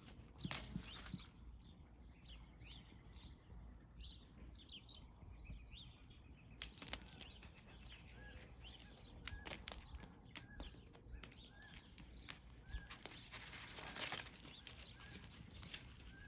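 Quiet outdoor ambience: faint bird chirps in the first few seconds, then scattered soft rustles and clicks as goats nose at a plastic bag and cardboard.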